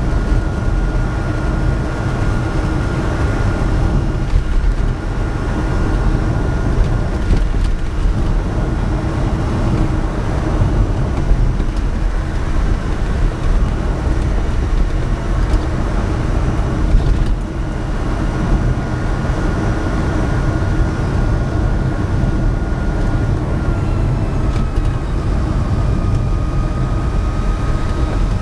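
Inside a Reva G-Wiz electric car on the move: a loud, steady low rumble of road and tyre noise, with a thin high whine above it that drops slightly in pitch near the end.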